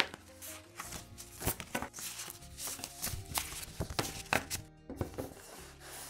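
Stacks of paper and folded paper signatures being handled and knocked against a table: a string of short, light taps and paper rustles. Quiet background music with held notes plays under it.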